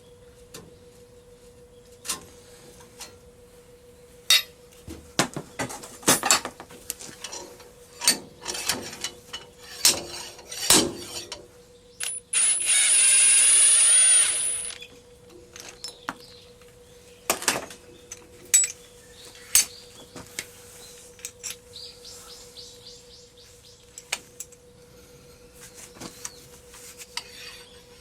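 Metal parts and tools clanking and knocking in irregular strikes, with a power tool running for about two and a half seconds midway. A faint steady hum lies underneath.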